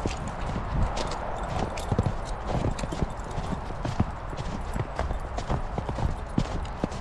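Footsteps of a person walking at a steady pace through snow, each step a short crunch.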